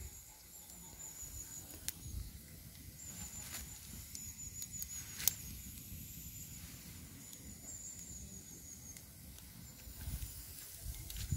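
Quiet outdoor ambience: a faint, high-pitched chirping trill repeats in short phrases of a second or two. There are a few light clicks, a sharper click about five seconds in, and low rustling.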